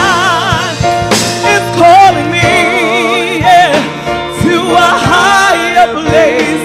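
A woman singing a gospel song into a microphone, her held notes wavering in a wide vibrato, backed by instruments.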